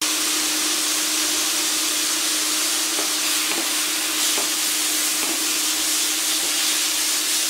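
Sliced mushrooms sizzling steadily in hot oil in a non-stick pan, with a steady low hum underneath. From about three seconds in, a wooden spatula stirs them, adding a few light knocks against the pan.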